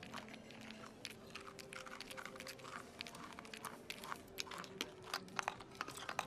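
Crunching and crackling of a whole langoustine's shell being chewed and sucked into a mouth, a fast run of sharp crackles that grows denser and louder toward the end.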